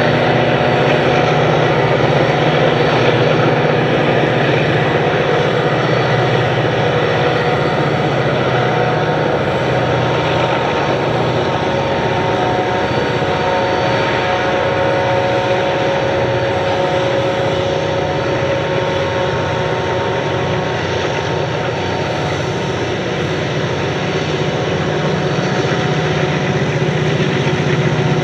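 Four diesel-electric locomotives working hard as they haul a freight train up a curve, a loud steady engine drone with a mix of held tones. It grows a little louder near the end as the locomotives draw closer.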